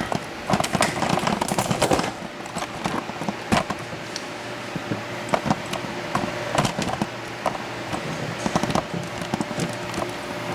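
Handling noise from a camera being turned around and repositioned: irregular clicks, knocks and rubbing.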